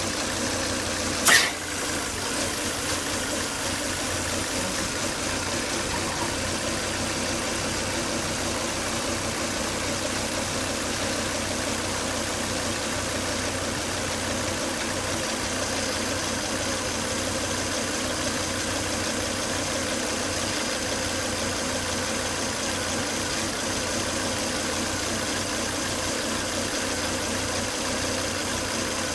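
Volvo S80 2.5T's turbocharged five-cylinder engine idling steadily. A single sharp click comes about a second in, and a faint high steady tone joins about halfway through.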